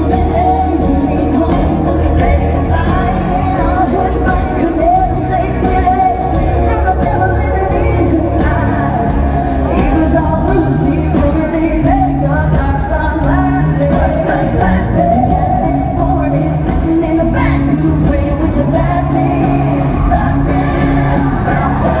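A female lead singer singing a country-pop song live with a loud amplified band and heavy bass, heard from the audience.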